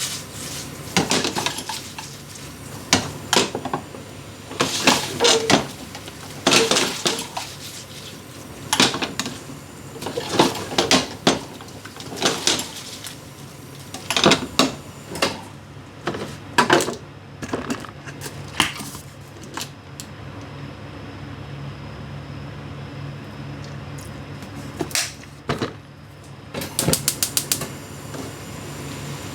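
Kitchen utensil clatter: a cooking utensil knocking and clicking against a pan or board in irregular clusters through the first half. Then a quieter stretch, with a few more clicks and a quick run of taps near the end.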